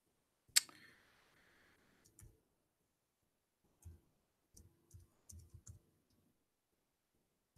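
Faint clicks of a computer keyboard and mouse while typing a search: one sharp click about half a second in, a few scattered clicks, then a quick run of about six near the middle.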